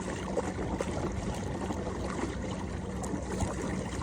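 Water lapping and trickling against a kayak's hull, with small irregular splashes and knocks and a faint steady hum underneath.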